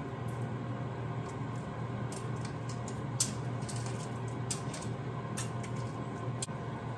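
Light crackling and clicking of eggshell being peeled by hand from a hard-boiled egg, over the steady hum of a running air fryer.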